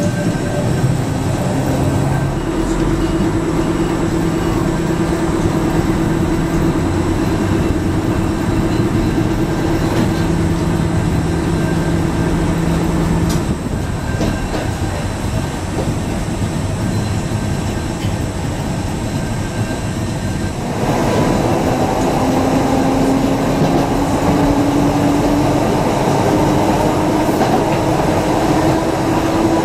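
Blackpool twin-car tram set 675+685 running on its rails, heard from inside the car: a steady electric motor hum over wheel-on-rail noise. About halfway through the hum drops out and it goes a little quieter. About two-thirds of the way in it gets louder again, with a whine that rises steadily in pitch as the tram picks up speed.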